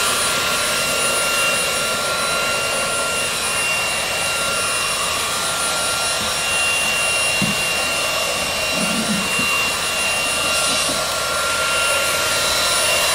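K9 Reliance cordless stick vacuum running steadily, with a high motor whine over a rush of air, as its crevice nozzle is drawn along a door threshold.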